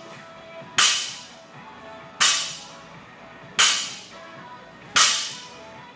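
Barbell loaded with 35-pound bumper plates set down on the rubber gym floor at each deadlift rep. There are four sharp thuds about a second and a half apart, each followed by a brief metallic ring from the bar and plates.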